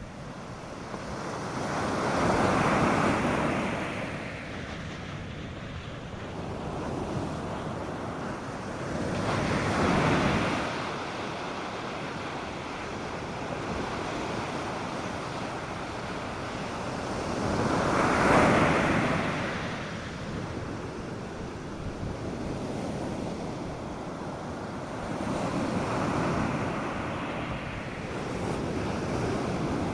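North Sea surf breaking on a beach. Four waves swell up and wash in, about eight seconds apart, over a steady hiss of water between them.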